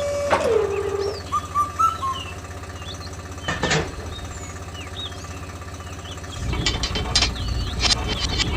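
A small engine running with a steady low knocking beat, getting louder near the end with several sharp clacks. Faint bird chirps sound in the background.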